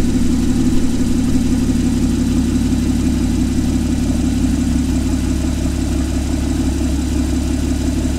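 Porsche Cayman engine idling steadily, heard from beneath the car at its Soul Performance exhaust. The exhaust's vacuum-actuated valves stay shut and do not respond.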